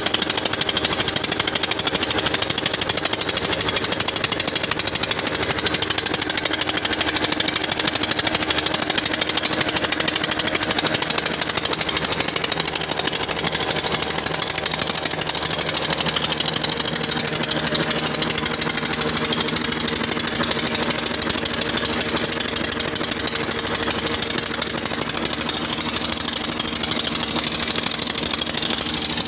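Chinese-made Petter-type diesel engine, rated 25 hp, running steadily at working speed with a fast, even pounding as it drives a belt-driven atta chakki flour mill.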